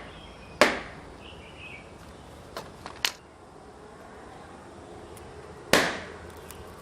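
Balloons bursting: single sharp pops spaced a second or more apart, with a small cluster about three seconds in and the loudest pop near the end. Faint bird chirps about a second in.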